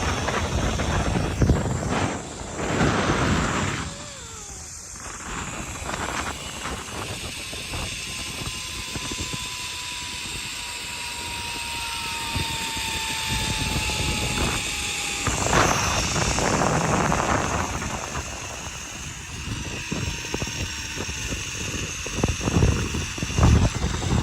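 Zipline trolley pulleys whirring along a steel cable during a ride, with a whine that slowly falls in pitch through the middle, over a rush of air and scattered knocks.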